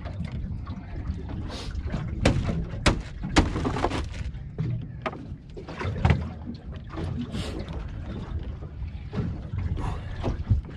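Wind rumbling over the microphone and water slapping against the hull of a small boat rocking on choppy open water, with scattered sharp knocks.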